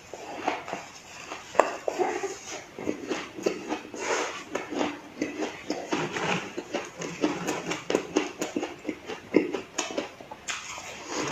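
Close-miked crunching and chewing of ice, a rapid, irregular run of crisp crunches.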